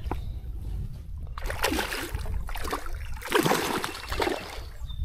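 A hooked smallmouth bass thrashing and splashing at the water's surface beside the boat as it is reeled in, in about four splashy bursts over some three seconds.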